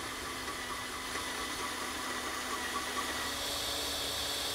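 Cordless drill running steadily with a hissing whir, its bit boring a hole through sheet metal to mount a winch remote's input jack.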